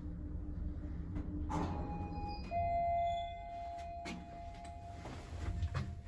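Lift car's drive hum stopping with a clunk as the car settles at the floor, followed by an arrival chime: a short higher note, then a lower note ringing for about two and a half seconds. A few clicks and knocks near the end.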